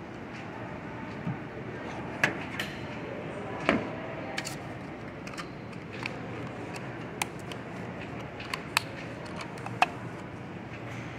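A lid being pressed and snapped onto a condiment cup on a stainless-steel counter: a scattered series of sharp clicks and taps over a steady background noise.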